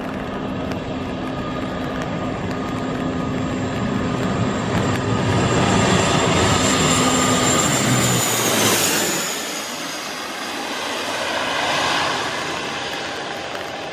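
A Dash 8-400 twin-turboprop airliner on landing approach passes low overhead, its propeller drone and engine whine building to a peak. About eight seconds in the pitch drops as it goes over, and the noise falls away as it heads on to the runway.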